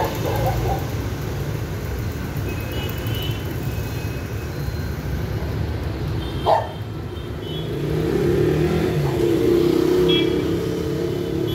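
Road traffic of cars and motorcycles passing slowly, a steady engine rumble. A brief sharp noise comes about six and a half seconds in, and a motorcycle engine passes close and louder near the end.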